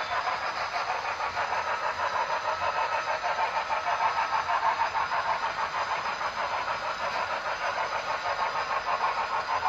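HO scale model of Union Pacific steam locomotive No. 844 running, with a steady rhythmic chuff of about four beats a second.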